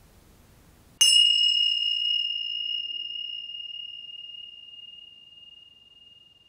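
A small bell or chime struck once about a second in: a single clear high tone that rings on and slowly fades, its higher overtones dying away first.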